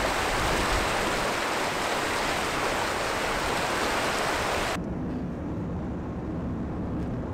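Shallow river rushing over rocky rapids, a loud steady hiss of running water. About five seconds in it cuts abruptly to a low rumble of a car driving on the road, with a faint steady engine hum.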